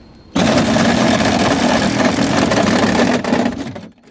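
Ryobi reciprocating saw cutting through a car door panel. It starts suddenly about half a second in, runs steadily for about three and a half seconds, and stops abruptly near the end.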